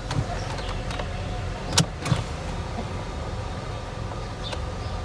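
Car engine idling, heard from inside the cabin, with a sharp click about two seconds in as the passenger seat belt latches into its new buckle.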